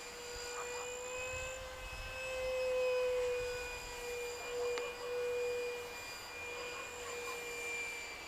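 64 mm Starmax electric ducted fan of a FreeWing F-35 Lightning II RC jet whining steadily in flight, a high tone with overtones. It swells and rises slightly in pitch about two to three seconds in, then eases back.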